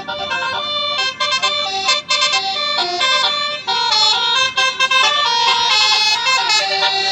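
Bus 'telolet basuri' musical horn playing a fast melody, its notes stepping up and down one after another.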